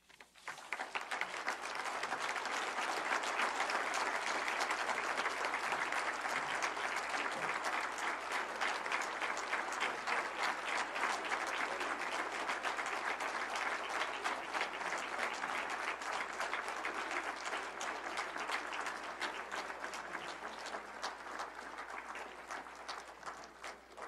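Audience applauding at length: the clapping swells over the first couple of seconds, holds steady, and thins out near the end.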